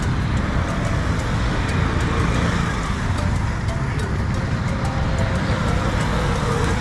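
Steady road traffic: cars and other motor vehicles running past in a continuous rumble.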